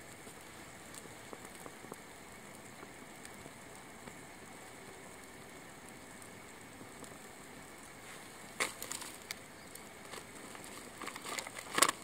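Small wood fire burning quietly in a stainless-steel SOTO ST-941 mini fire stand, with scattered faint crackles. There is one sharp pop about two-thirds of the way in and a burst of louder pops near the end.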